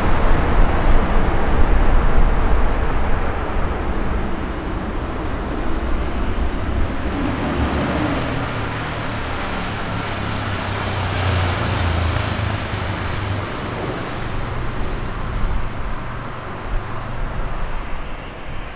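Jet engines of a Boeing 777 freighter, two GE90 turbofans, running at taxi thrust: a steady rumble and hiss. It grows louder and brighter, with a faint whine, from about ten to fourteen seconds in as the aircraft turns, then eases off near the end.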